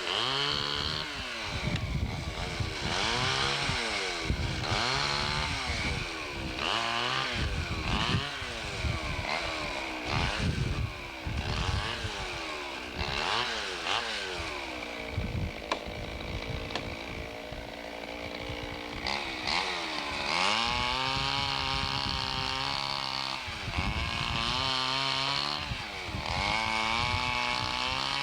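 Two-stroke chainsaw running, its engine speed repeatedly rising and dropping back every second or two, with a steadier stretch in the middle.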